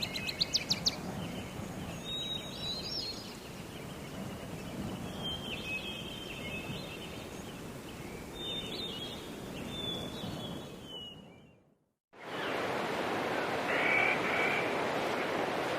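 Wild birds chirping and calling at intervals over a steady outdoor hum, with a quick run of rising calls at the start. About three quarters of the way in, the sound fades out to a moment of silence, and a different, louder and hissier outdoor ambience starts.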